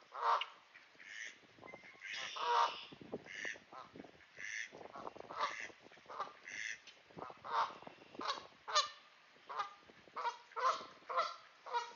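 Goose honking an alarm call over and over: about fifteen loud honks, coming closer together in the second half.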